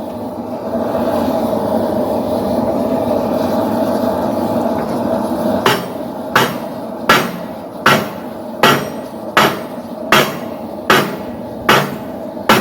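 Hand hammer striking hot steel on an anvil in a steady forging rhythm, about ten blows at roughly one every three-quarters of a second, starting about five and a half seconds in. Before the blows there is only a steady rushing noise.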